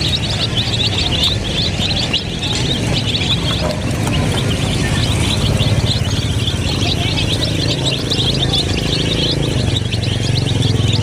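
A flock of domestic chicken chicks peeping continuously, many short, high, falling cheeps overlapping one another, over a steady low hum.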